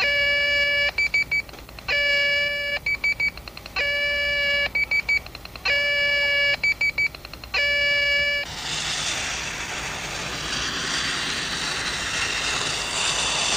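Science-fiction electronic computer sound effect: a held electronic tone followed by a flurry of rapid short beeps, repeating about every two seconds, five times over. After that it switches to a steady rushing hiss.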